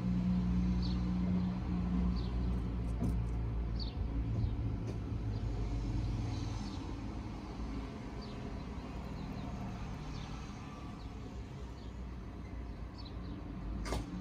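A low, steady vehicle hum that fades out about halfway through, with small birds chirping every second or so. There is one sharp click near the end.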